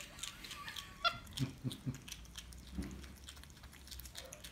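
Capuchin monkey calling: a thin squeaky call that rises sharply about a second in, followed by three short low grunts, with scattered clicky chewing sounds as she eats.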